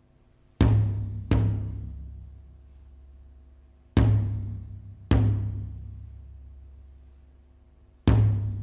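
Deep drum hits played back through a pair of small homemade speakers with 40 mm drivers and passive radiators: five strikes at uneven spacing, each a sharp attack followed by a long, slowly fading low boom.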